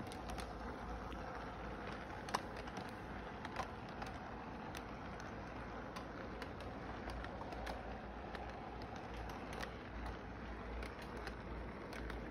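Toy train running along its track: a steady running noise with scattered light clicks, two of them sharper a few seconds in.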